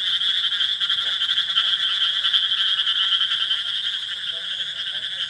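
Dense night chorus of chirping animals, a continuous rapid pulsing trill in two pitches, one high and one lower.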